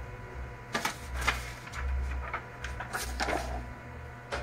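HP Color LaserJet Pro MFP M477 colour laser printer running its mechanism: a low motor hum that swells and fades about once a second, with a string of sharp mechanical clicks and knocks.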